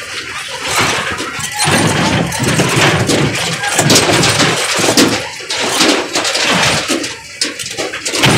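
Loud rumbling din of a kiddie monster-truck fair ride in motion. It swells about a second and a half in and eases near the end.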